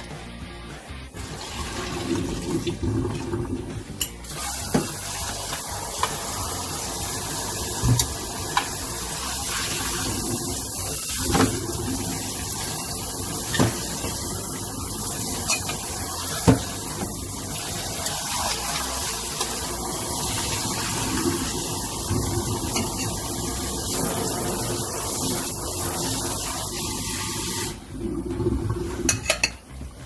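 Kitchen tap water running steadily into a metal pot, rinsing parboiled makchang after the cooking water has been poured off, with a few knocks of the pot. The water starts about four seconds in and shuts off near the end.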